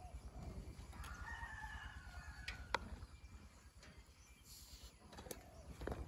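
A faint rooster crow lasting about a second and a half, followed by a few sharp clicks, the loudest just after the crow ends.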